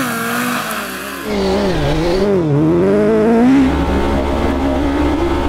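Racing engine under hard acceleration, its pitch dipping and rising several times before holding steady.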